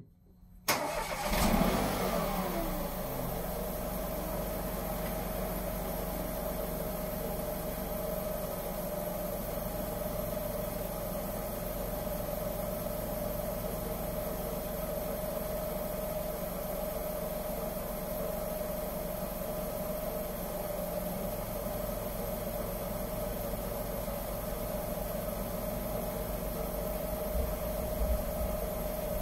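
Smart 453 car engine starting about half a second in, its revs flaring and dropping within a couple of seconds, then idling steadily.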